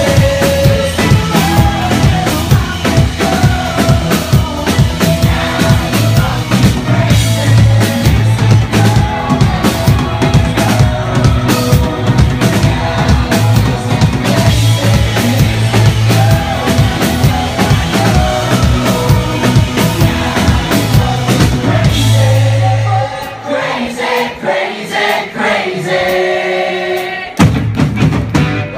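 Indie rock band playing loud live: drum kit, bass, guitars and sung vocals. About 23 seconds in the bass drops out, leaving drums and voices for a few seconds, then the full band comes back in near the end.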